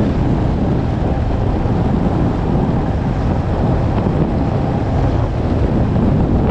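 Heavy wind noise on the microphone while riding a 2022 Beta RR 300 Racing, its single-cylinder two-stroke engine running underneath with no clear pitch coming through.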